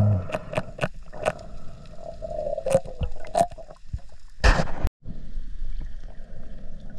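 Underwater handling of a speared gray triggerfish on the spear shaft: scattered sharp clicks and knocks over a steady hum. A loud rushing burst comes about four and a half seconds in and cuts off abruptly.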